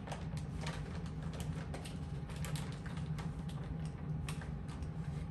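Scattered light clicks and crinkles of shredded cheese being scooped from its plastic bag with a measuring cup, over a steady low hum.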